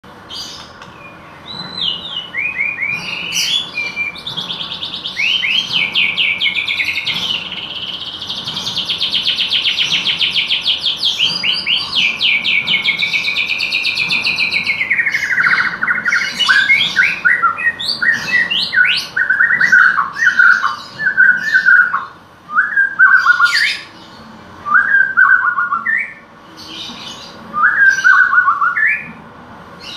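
White-rumped shama singing a song filled with learned canary-style phrases. A long, very fast rolling trill runs through the first half, then the bird moves to shorter phrases of falling notes, separated by brief pauses.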